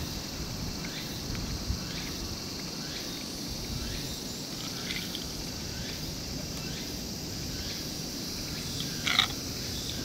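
Steady high-pitched insect chorus in a forest, with a few faint short calls scattered through it and one brief louder call near the end.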